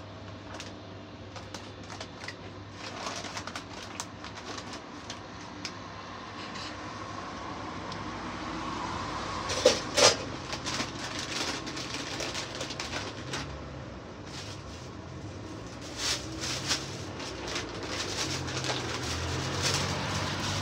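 Rotisserie chicken grill running: a steady low hum with scattered crackling clicks, and two sharper clicks about ten seconds in.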